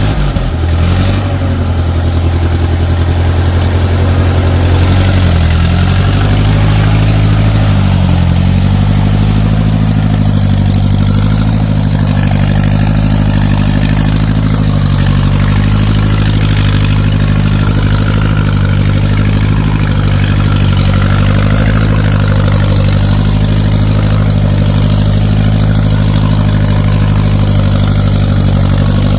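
An engine starts up and then idles steadily.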